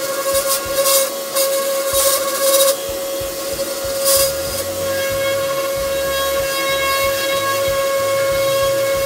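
Random orbital sander with a dust-extraction hose running with a steady whine, its 320-grit pad sanding the painted rear panel of a 2001 Smart Fortwo. Bursts of hissing come and go in the first few seconds and again about four seconds in as the pad works the surface.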